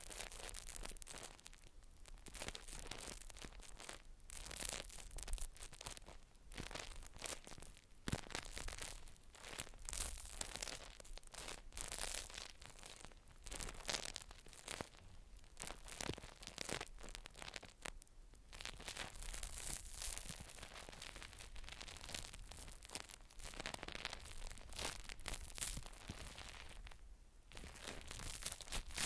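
Close-miked crinkling and scratching handling sounds: an irregular run of short, scratchy strokes, with brief lulls twice.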